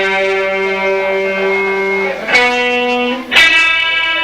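Amplified electric guitar playing three long held notes in turn, each a little higher than the last, picked one by one between songs.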